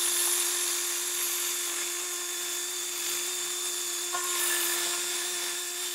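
Hand-held power drill running with a steady whine as its bit bores into a PVC pipe cap, widening the hole for an axle.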